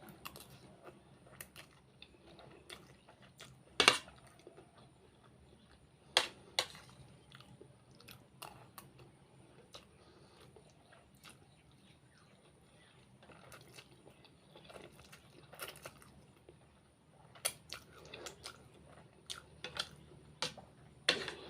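A person chewing and biting food, with a few sharp clicks scattered through it, the loudest about four and six seconds in and near the end.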